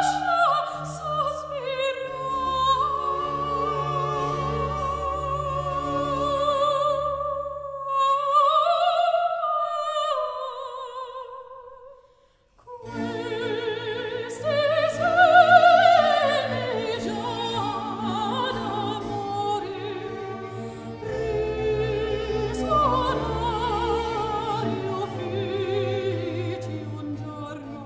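A soprano sings an 18th-century opera aria with wide vibrato, accompanied by a small period-instrument orchestra of strings and keyboard. Partway through, the accompaniment drops away and the voice carries on alone. There is a brief silence about twelve seconds in, then voice and orchestra come back together.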